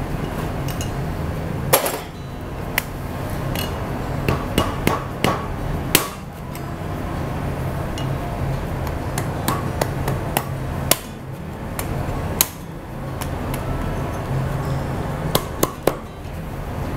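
Cleaver striking a lobster claw on a wooden chopping block to crack the shell: a scattered series of sharp knocks a second or a few seconds apart, over a steady low hum.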